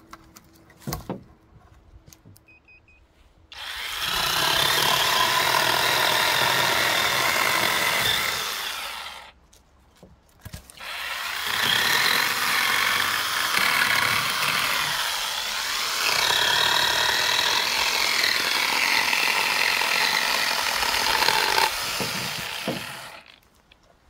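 Small battery-powered chainsaw running and cutting through tree branches, in two long runs of about five and twelve seconds with a short pause between.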